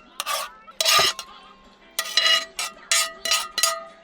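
A metal utensil scraping and knocking against a cast iron pan. There are a few rough scrapes and a sharp knock about a second in, then quick repeated scrapes, about three a second, that leave the pan ringing.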